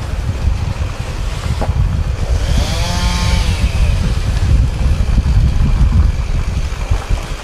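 Steady loud low rumbling noise, with a pitched sound that rises and falls once about three seconds in.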